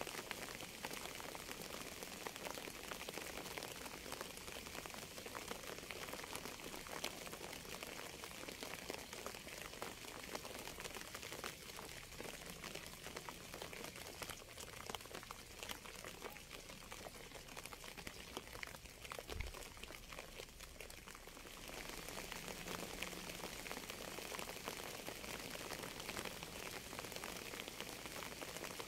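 Steady rain falling, a dense patter of many small drops. It eases slightly past the middle and picks back up about three quarters of the way through.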